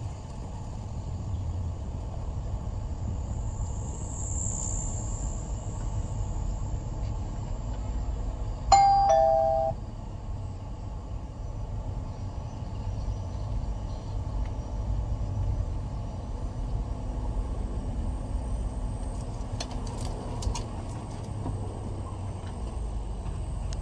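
Steady low engine and road rumble inside a car's cabin as it drives slowly. About nine seconds in comes a loud electronic two-tone ding-dong chime, a higher note then a lower one, lasting about a second.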